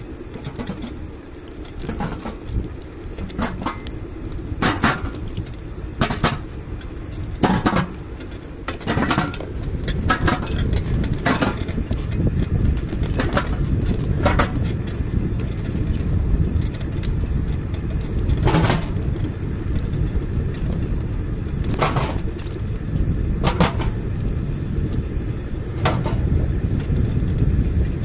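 Steady low rumble of wind buffeting the microphone and wheels rolling on a paved path while riding, with irregular sharp clicks and rattles every second or two, fewer in the second half.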